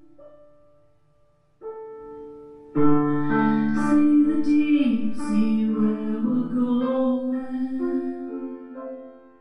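Grand piano played live: a held note dies away almost to silence, a soft chord enters about one and a half seconds in, and a fuller chord follows near three seconds, ringing on and slowly fading. A woman sings over the fuller chord.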